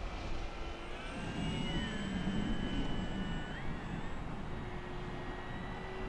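Electric motor and propeller of a large RC model DeHavilland Beaver flying overhead: a thin, steady whine made of several tones that slide down in pitch and then rise again about midway, as the plane passes and the throttle changes. Wind rumbles on the microphone underneath.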